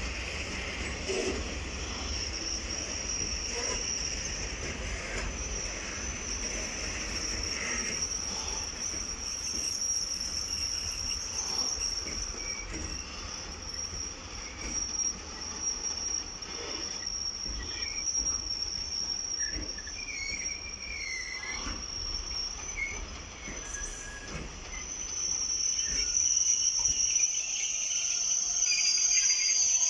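A long freight train of open-top gondola wagons rolling past, wheels rumbling on the rails with a steady high-pitched squeal that grows louder over the last few seconds.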